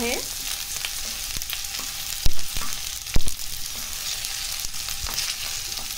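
Cut okra sizzling as it fries in hot oil in a non-stick kadhai, stirred with a wooden spatula that scrapes and taps against the pan. Two louder knocks of the spatula come about a second apart, a little past two and three seconds in.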